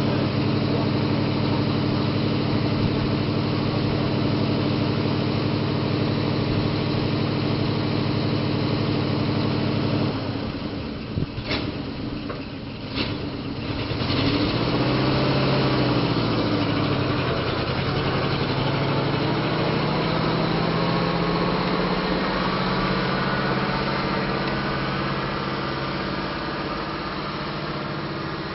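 Railmotor RM64's eight-cylinder petrol engine idling steadily. About ten seconds in it drops in level, two sharp clicks follow, and the engine revs up and falls back before running on steadily as the railmotor moves off.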